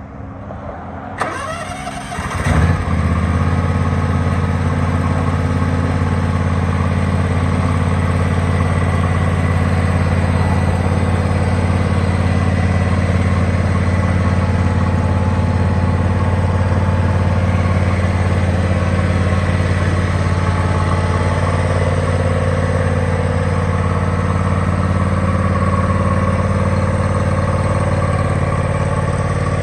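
John Deere X300 lawn tractor's engine started: a click about a second in, a brief crank, and it catches quickly, then runs steadily.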